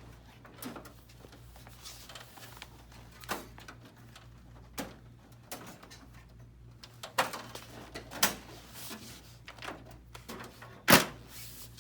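Scattered knocks and clicks from the finisher unit of a Xerox AltaLink C8070 copier being slid back into place against the machine and latched, with one loud clunk near the end, over a steady low hum.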